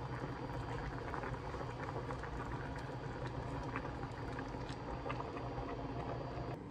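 A pot of spicy blue crab stew boiling hard: dense, steady bubbling with many small irregular pops.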